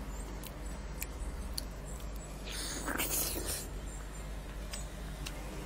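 Close mouth sounds of a person chewing juicy, fibrous soursop pulp: scattered small wet clicks and smacks, with a longer hissing suck about halfway through.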